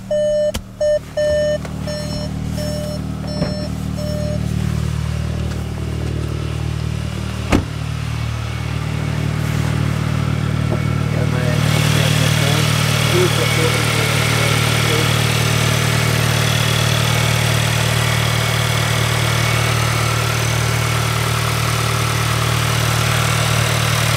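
Volkswagen Golf GTI Mk7.5's 2.0 TSI turbocharged four-cylinder idling steadily, breathing through an Integrated Engineering aftermarket intake and turbo inlet. The car's warning chime beeps for about the first second and a half, and there is a single sharp knock about seven and a half seconds in. From about twelve seconds in the idle is louder with more intake hiss, heard from the open engine bay.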